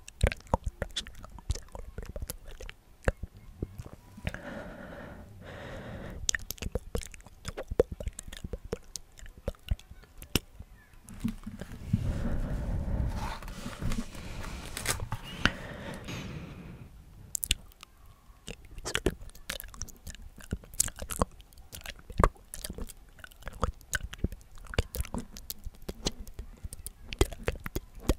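Pages of a large glossy magazine rustling and crinkling as they are handled close to the microphone. Many small crackles and clicks throughout, with longer stretches of louder rustling about four seconds in and again from about twelve to seventeen seconds.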